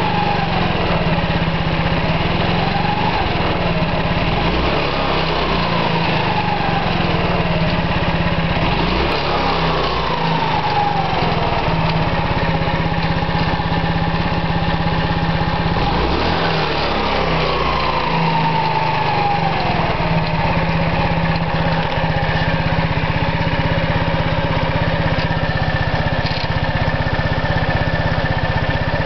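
Xingyue ITA 150 scooter engine running, revved about four times, each rev falling away slowly, then settling to a steady idle for the last several seconds. A strange noise is coming from the crankcase.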